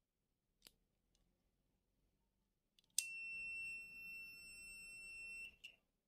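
Multimeter continuity buzzer sounding one steady high-pitched beep for about two and a half seconds, starting with a click about three seconds in: the meter is showing continuity through an electric fan's rotary selector switch in its speed 1 position. A faint click comes about a second before the end of the first second.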